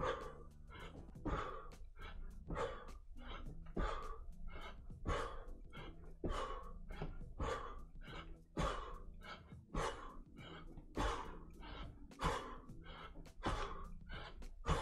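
A man breathing hard in time with repeated jumping, his feet landing on the floor about twice a second as he does side-to-side ski hops.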